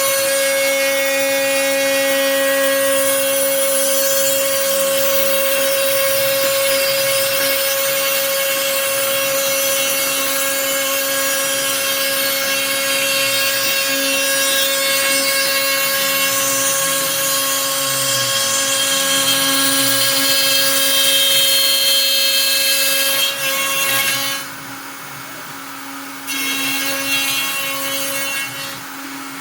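CNC router spindle running with a steady whine while a quarter-inch bit mills a Sitka spruce guitar top, with a rasping cutting noise. The cutting noise drops away about 24 seconds in, returns briefly about two seconds later, then falls away again near the end as the bit lifts out of the wood.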